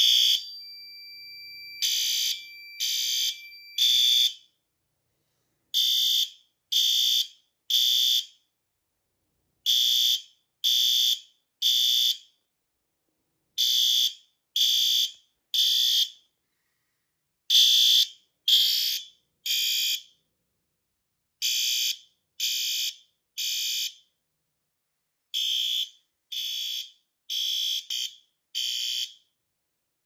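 System Sensor L-Series horn strobe sounding its horn in the temporal-3 evacuation pattern: three short blasts, a pause, then three again, repeating steadily. A steady tone fades out during the first second or so before the blasts begin.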